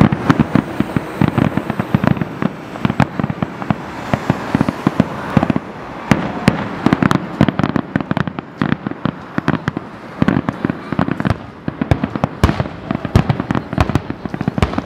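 Fireworks finale: a dense, rapid barrage of aerial firework bursts, many sharp bangs a second overlapping over a constant rumble.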